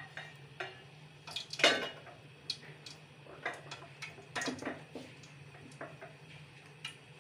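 Metal cookware being handled on the stove: a series of short clinks and knocks, the loudest about a second and a half in, over a steady low hum.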